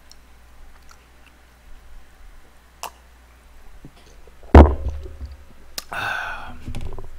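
Table-side eating sounds: a few faint clicks, then one heavy thump about four and a half seconds in, the loudest sound here. Near the end a short wordless vocal sound from the eater.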